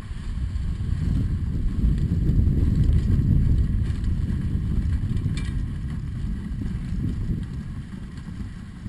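Wind rumbling on the microphone of a dog sled moving over snow, swelling a couple of seconds in and easing toward the end.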